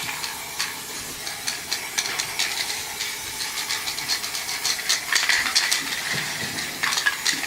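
Aerosol spray paint can spraying in a continuous hiss, dotted with many small clicks.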